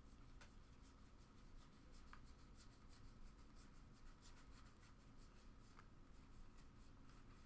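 Near silence: faint, scattered soft ticks and rubbing of trading cards being slid and flipped through by hand, over a low steady room hum.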